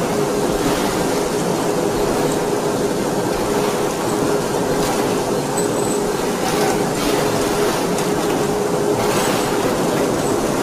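D53K CNC radial-axial ring rolling mill rolling a red-hot forged steel ring: a steady mechanical rolling noise with a constant hum, and short bursts of hiss every couple of seconds.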